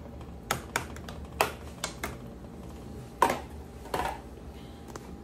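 A spoon clinking and knocking against the rim and side of a metal cooking pot while stirring, about seven sharp, irregular knocks, some with a brief ring.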